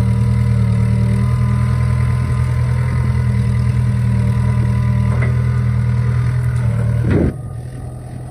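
Mini excavator's diesel engine running steadily under load as the machine, bogged down in deep mud, works its boom to free itself. About seven seconds in there is a brief squeal, and then the engine sound drops abruptly to a lower level.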